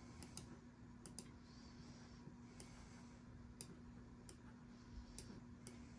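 Faint, scattered clicking at a computer, about ten clicks, as parts are copied and moved in slicer software, over a faint steady hum.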